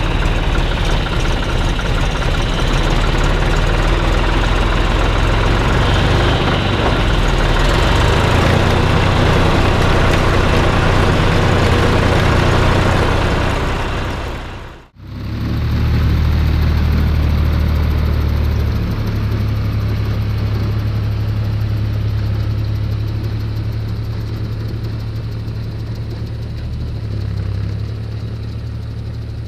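Tractor diesel engine running steadily, heard close with a lot of mechanical noise. About halfway through, the sound dips out briefly at a cut. After that the engine carries on as a steadier low hum with less hiss, and its note shifts at two points.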